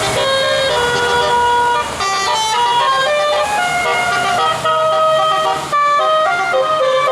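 Bus telolet horn playing a fast tune of short, stepped notes, with a few brief breaks.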